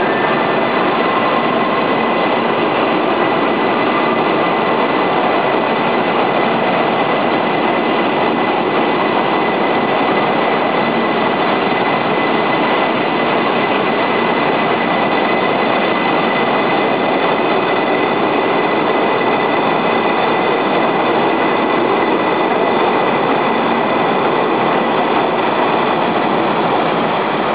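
A CRH2 high-speed electric train pulls out of the station alongside the platform. It runs with a loud, steady rush of noise and a constant high whine, with no speech over it.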